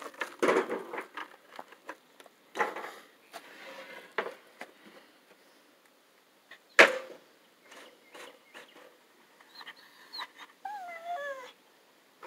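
Knocks and thumps of a laminated panel being handled and set against a jobsite table saw that is not running, with one sharp knock about seven seconds in. Near the end, a dog's short wavering whine.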